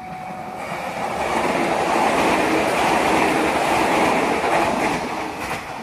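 KRL Jogja-Solo electric multiple unit (KfW i9000 set) passing close by: the rush of wheels on rail and running noise swells from about a second in, is loudest in the middle as the cars go by, and fades near the end.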